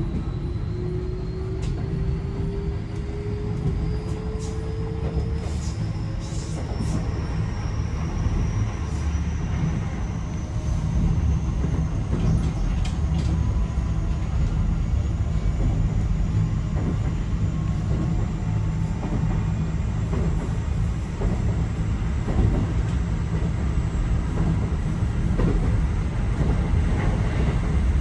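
Keio 5000 series electric train accelerating, heard from inside the car: the traction motors and inverter whine and rise steadily in pitch over a low rumble of wheels on rail. A few clicks of rail joints come through, and the running grows louder about ten seconds in.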